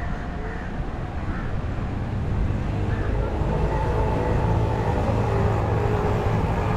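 Boat engine running steadily, its hum growing louder about two seconds in.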